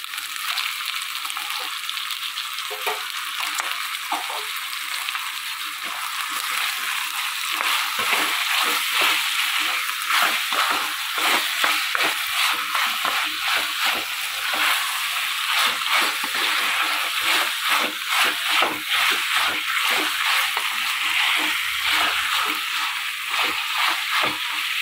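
Chicken pieces sizzling in a pan of frying masala while they are stirred, the spoon scraping and knocking against the pan. The stirring gets busier about six seconds in.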